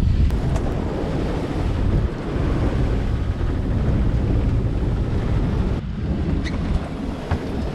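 Strong wind buffeting the microphone over the rush of waves and spray along a sailing yacht's hull, in gusts of 14 to 16 m/s.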